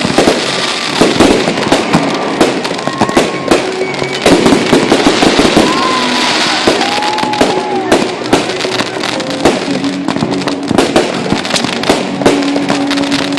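Fireworks display: continuous rapid crackling and popping of bursting shells, with several whistling fireworks whose pitch rises and falls in arcs.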